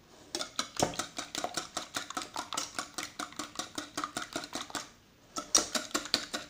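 Metal wire balloon whisk beating eggs in a plastic bowl: quick, even clicking strokes of the wires against the bowl, about six or seven a second, with a short pause about five seconds in.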